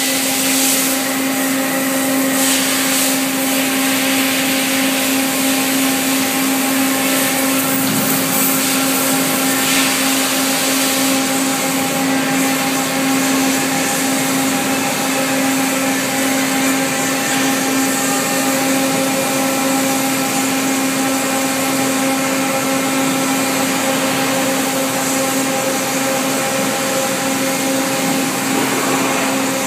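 Steady running noise of foundry moulding-line machinery: a constant drone with a couple of higher steady tones under a broad hiss. Two short surges of hiss come about three and ten seconds in.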